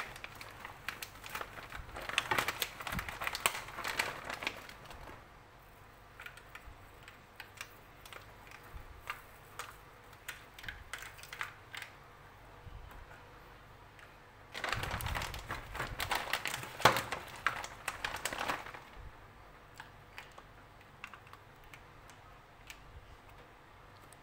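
Shredded mozzarella being sprinkled by hand into an aluminium foil tray, with a plastic cheese bag crinkling: light, rapid ticking and rustling, busier at the start and again past the middle.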